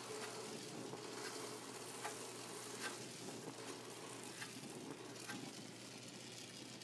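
Gas torch flame hissing steadily against the base seam of a copper vase as it is soldered, with flux and solder sizzling and a few small pops.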